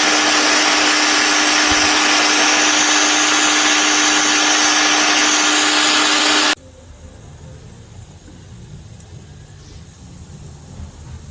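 Electric pressure washer running and spraying: a loud, steady hiss of the water jet over an even motor hum. It cuts off abruptly about six and a half seconds in, leaving a much quieter low rumble.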